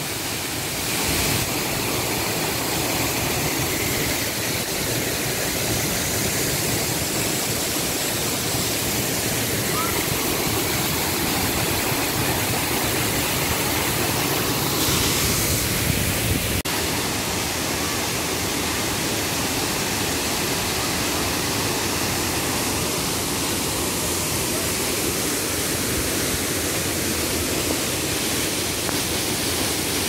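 Waterfall pouring over rock into a rainy-season mountain stream, a steady, even rush of water.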